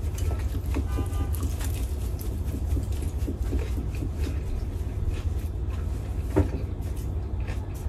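A steady low rumble under faint chewing and small clicks of a fork against a plate as someone eats, with one sharper click about six seconds in.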